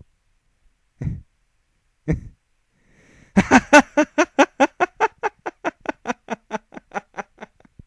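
A voice performing a hysterical laugh: two short chuckles, then a long run of quick 'ha' pulses, about four or five a second, loud at first and gradually fading.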